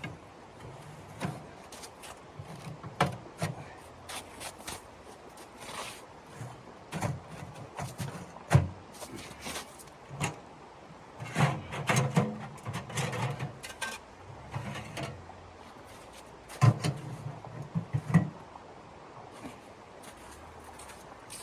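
Irregular knocks, clicks and rubbing sounds with dull low thumps, as things are handled, busiest twice in the middle and later on.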